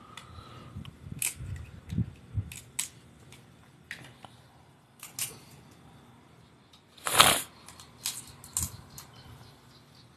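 Blue crabs being cleaned with a knife over a plastic bucket: a scatter of cracks, snaps and clicks as shells are broken off, the loudest a short crunch about seven seconds in.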